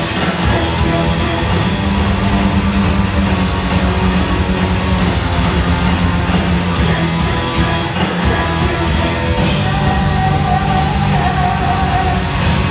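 Heavy metal band playing live: distorted electric guitar, bass and drums, loud and dense, with a note held for a couple of seconds near the end.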